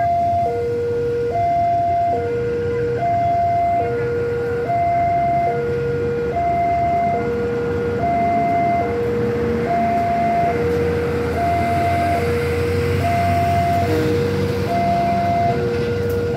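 Railway level-crossing warning alarm sounding a steady high-low two-tone signal, switching pitch a little under once a second. Underneath it the low rumble of an approaching CC 201 diesel-electric locomotive grows louder.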